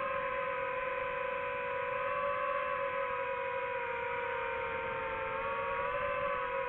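DJI FPV drone's motors and Gemfan Hurricane 5236 propellers whining steadily in flight, the pitch sagging a little past the middle and then climbing back as the throttle changes.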